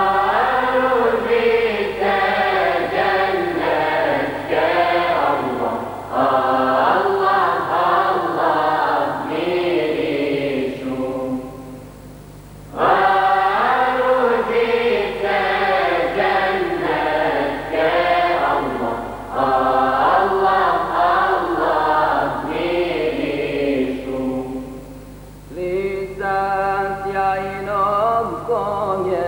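Choir singing a Bosnian Islamic devotional hymn (ilahija) in long phrases, breaking briefly about twelve seconds in and again near the end, over a low steady hum.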